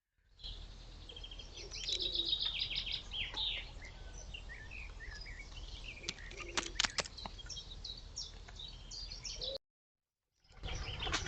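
Several small birds chirping and trilling, with a quick run of chirps about two seconds in and a few sharp clicks about six to seven seconds in, over a steady low hum. The sound cuts out for about a second near the end.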